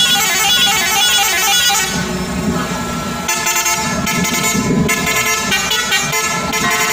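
Lorry 'telolet' musical air horns sounding a multi-note tooting tune, the chord of notes changing every second or two.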